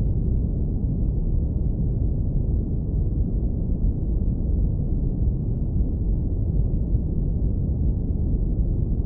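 Steady deep brown noise, filtered down to the low end: an even, warm rumble with nothing bright on top and no change in level.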